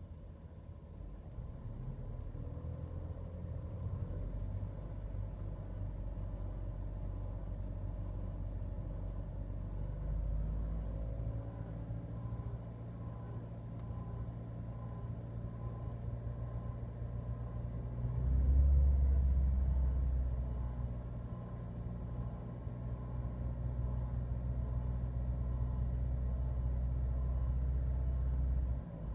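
Volkswagen-group 1.2 TSI EA211 (CJZC) turbocharged four-cylinder petrol engine running, a low steady hum with a faint high tone above it. The engine note shifts about ten seconds in and swells louder for a couple of seconds about two-thirds through. The owner hears a strange noise in it that he has not pinned down.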